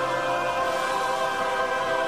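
Closing background music of sustained, held chords, with a choir.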